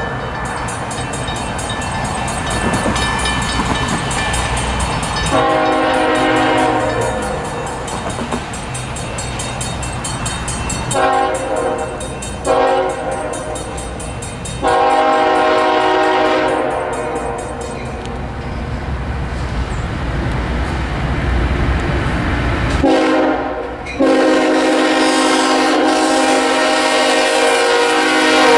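A CSX diesel freight train approaches and passes, sounding its multi-chime air horn in a series of blasts, mostly long with a couple of shorter ones. A last blast starts near the end as the locomotives go by. Under the horn, the rumble of the diesel engines and wheels grows louder as the train nears.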